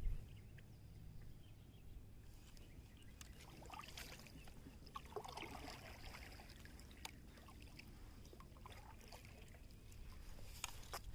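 Faint water lapping and small splashes against a kayak hull, with scattered light knocks, over a low, steady wind rumble on the microphone.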